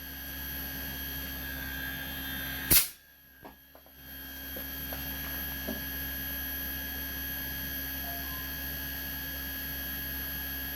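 Steady electrical hum with thin, steady high whines from a running DC inverter air conditioner outdoor unit, its compressor driven by a freshly repaired outdoor PCB. A sharp click comes about three seconds in, and the hum drops away for about a second before returning.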